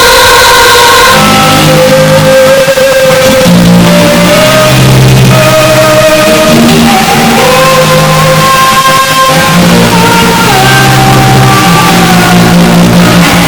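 Loud, heavily bass-boosted pop-rock music: a melody of held notes over heavy, stepping bass notes, with no clear words sung.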